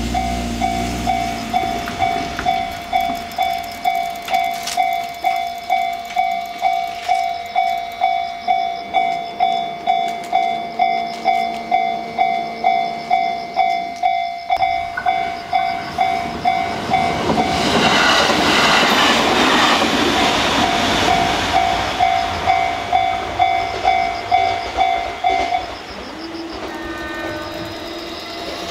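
Japanese railway level-crossing warning bell ringing about twice a second while a train passes over the crossing, the passing train loudest for a few seconds past the middle; the bell stops near the end.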